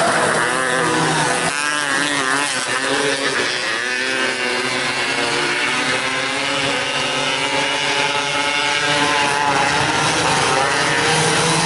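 Several 270cc micro sprint car engines racing, their pitches rising and falling and overlapping as the cars rev through the turns and pass.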